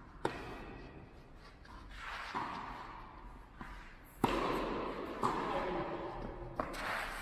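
Tennis rally: a tennis ball struck by rackets and bouncing on a clay court, a string of sharp pops that echo in a large hall, the loudest a backhand hit about four seconds in.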